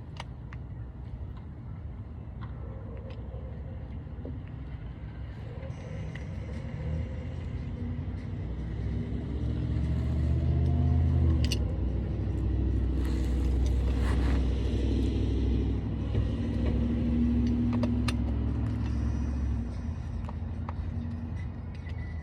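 A motor vehicle's low engine rumble that builds from about seven seconds in and eases off near the end, with a few sharp clicks over it.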